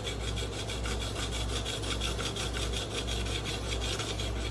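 Coarse 80-grit KME sharpening stone scrubbed back and forth along a CPM MagnaCut knife edge in quick, even strokes, raising a burr on the blade.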